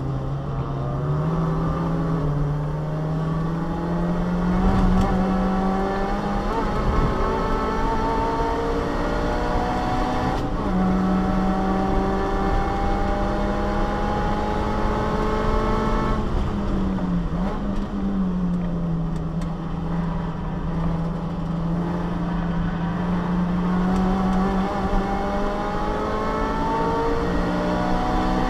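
Subaru Vivio's 658 cc four-cylinder engine heard from inside the cabin, running hard at racing speed. Its pitch climbs steadily, breaks about ten seconds in and climbs again, drops and eases off around sixteen seconds in, then climbs steadily once more.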